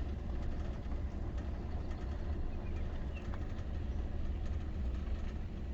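Vehicle engine running, heard from inside the cab as a steady low rumble.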